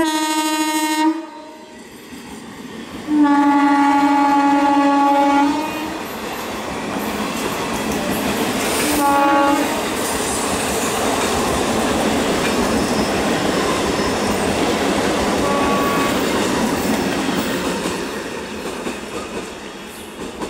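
Indian Railways EMU electric local train sounding its horn three times: a blast of about a second, a longer blast of about two and a half seconds, then a short blast. The train then runs past close by with a steady rush and wheel clatter that dies down near the end.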